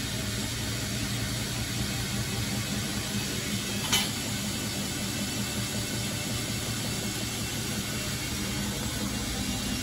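Bosch WFF1401 front-loading washing machine running mid-cycle with a steady hum, its motor bearings and brushes freshly replaced. A single short click comes about four seconds in.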